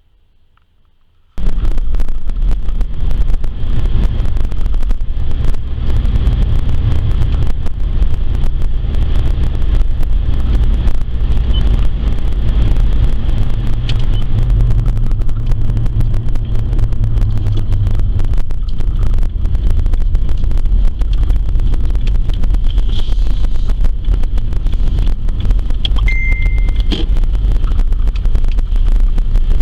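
Vehicle on the move: a loud, steady low rumble of engine and road noise that starts abruptly about a second and a half in, with a short high beep near the end.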